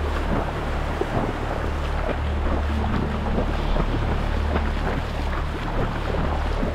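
Wind buffeting the microphone over water, a steady low rumble with many small irregular ticks and splashes.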